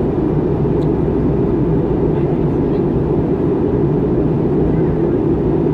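Airbus A320 cabin noise in flight: the steady low drone of the jet engines and rushing air, even and unchanging throughout.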